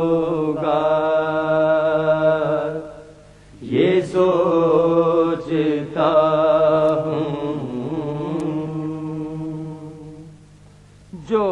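Men's voices singing long, drawn-out notes of an Urdu salam without clear words, in three held phrases with short breaks about three seconds in and near the end. Right at the end a single voice comes back in with a quicker, wavering line.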